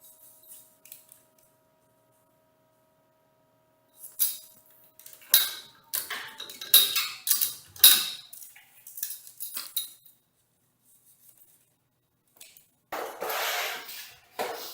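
Steel parts and tools clanking and clinking in a cluster of sharp strikes, some of them ringing, during roll-cage assembly. Near the end comes a rough, noisy burst about a second and a half long.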